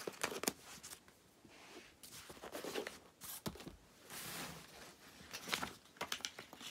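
Handling noise from hardback sketchbooks being set down and moved about on a carpet. There are scattered soft knocks and clicks, with brief brushing and rustling swishes between them.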